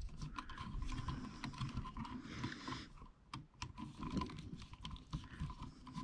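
Faint, irregular small clicks and light rattles of stiff household wires and a metal-strapped electrical receptacle being handled in a wall outlet box.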